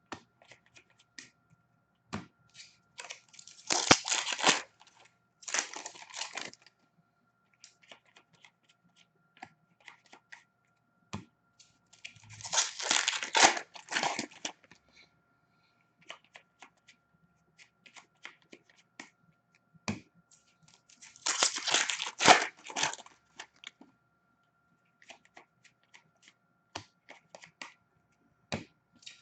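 Foil wrappers of hockey card packs being torn open: about four bursts of crinkling and tearing, with light clicks and taps of cards being handled in between.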